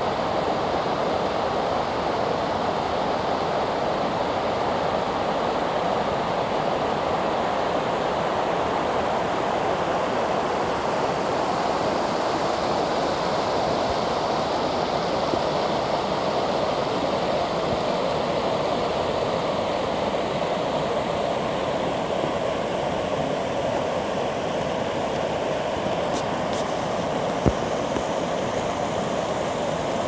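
River water rushing over shallow rapids in a steady, even roar. A brief sharp click comes near the end.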